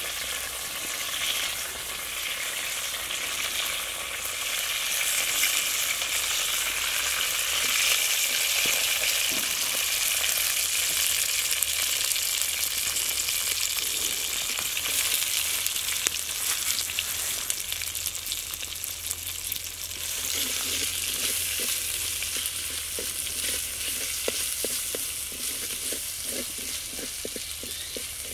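Oil sizzling in a clay pot, frying curry leaves, shallots and garlic. The sizzle is loudest in the first half; in the last third a metal spoon stirring the shallots against the pot adds short clicks.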